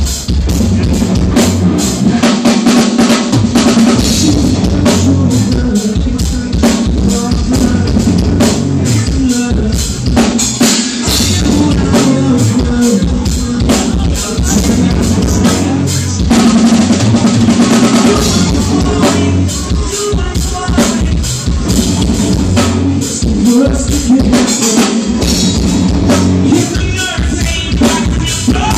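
A live alternative-metal band plays loudly, with a driving drum kit of bass drum and snare under guitars and bass. A lead vocalist sings over it at times.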